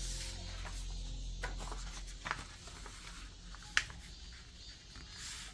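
A sheet of paper being folded and creased flat by hand: rustling with a few sharp crinkles and taps, the loudest about four seconds in.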